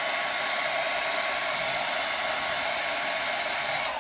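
Handheld dryer blowing steadily on high to dry wet chalk paste, an airy rush with a steady whine over it. Near the end it is switched off, and the whine drops in pitch as the motor winds down.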